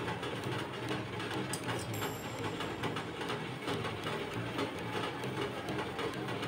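A steady machine hum, with faint soft clicks and rustles of hands working rice-flour dough in a steel bowl.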